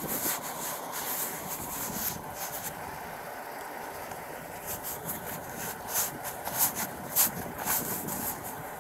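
Wind buffeting a body-worn camera's microphone as a steady rushing noise, with a run of short rustles starting about halfway through.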